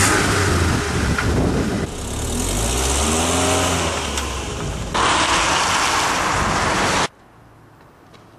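A car's engine revving and the car driving away, with loud engine and road noise and a pitch that rises and falls in the middle. The sound cuts off abruptly about seven seconds in, leaving only a faint background.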